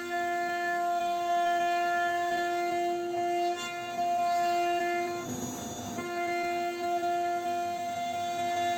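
Background music of long held chords, with a short break about five seconds in.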